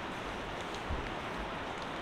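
Downtown street ambience: a steady hiss of city traffic with low rumbling, and a soft thump about a second in.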